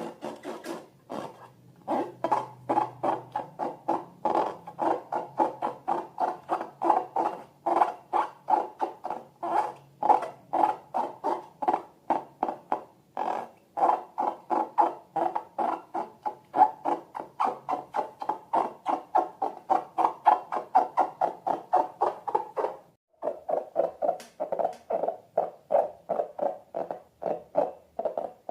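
Slime being stirred or squeezed, giving a steady run of short wet clicking squelches, about three a second.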